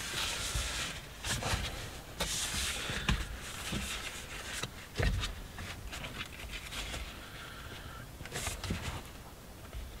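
Hands stretching and working a genuine-leather steering wheel cover onto the wheel rim: scattered rubbing and scuffing of leather, with a few soft thumps, the loudest about five seconds in.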